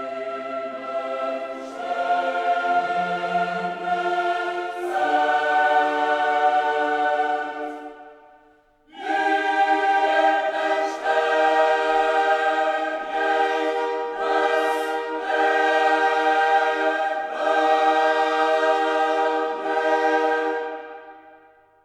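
Background music: choral singing in held chords, in two long phrases with a short break between them, fading out at the end.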